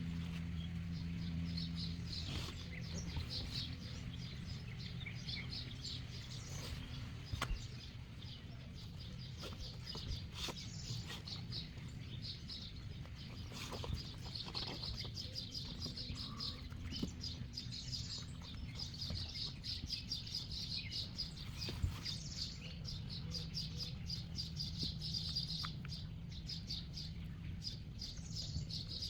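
Small birds chirping rapidly and continuously, over a low steady rumble.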